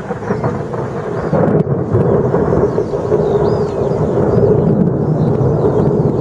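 Rolling thunder: a long low rumble that builds over the first second or so and keeps going loud.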